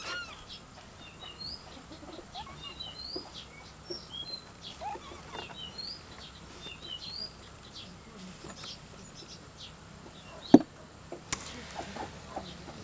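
Small birds chirping in short, scattered high calls. Near the end comes a single sharp knock, the loudest sound, with a fainter one just after.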